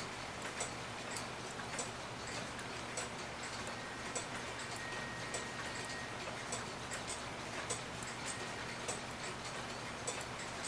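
Regular ticking of a mechanical cuckoo clock movement running, a bit under two ticks a second.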